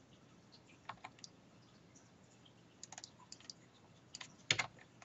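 Computer keyboard keys tapped in short scattered clusters, the loudest a double clack about four and a half seconds in.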